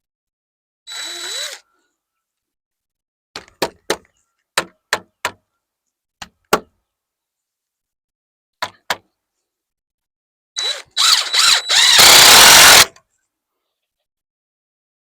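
Cordless drill driving a screw into framing lumber in a short burst with a motor whine, then a series of about ten sharp knocks on wood, then a longer, louder drill run driving another screw home.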